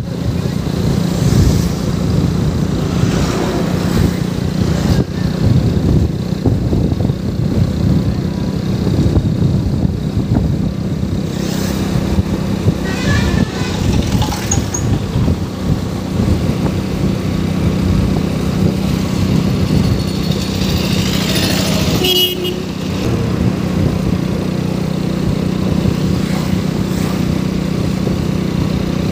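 Steady engine drone and road noise of a motor vehicle travelling along a country road, with a constant low hum, plus a couple of short higher-pitched sounds about halfway through and near three-quarters of the way.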